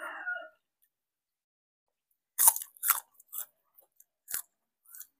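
Crisp bites and chewing into a raw green vegetable: a run of sharp crunches starting about two and a half seconds in, the first two the loudest, then fainter crunches.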